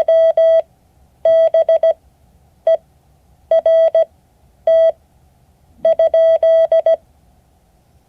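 Morse code practice tone: a single steady beep keyed on and off in dits and dahs, sent as six characters with short gaps between them.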